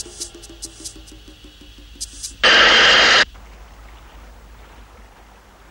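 Tense film music with a ticking beat stops about a second in. Then comes a loud, even hiss of steam, just under a second long, starting and stopping sharply, with a faint hiss after it.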